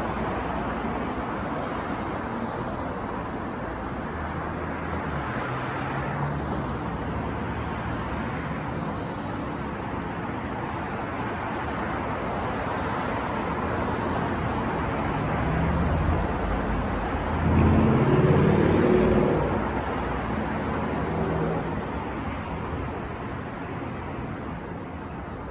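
City street traffic: a steady wash of passing cars. About two-thirds of the way through, a heavier vehicle's engine passes close and is the loudest sound, then fades.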